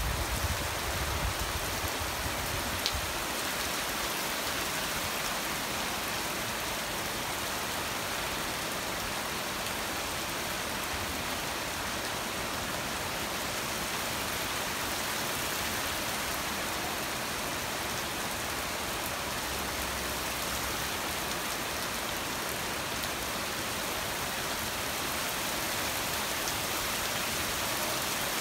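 Steady rain falling on a street and trees, an even hiss throughout. A low rumble fades out in the first few seconds.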